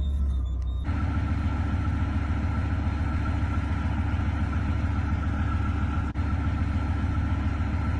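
Gepard self-propelled anti-aircraft gun's 830-horsepower multi-fuel diesel running steadily: an even low rumble with a faint steady whine, starting abruptly about a second in and dipping briefly once near the six-second mark.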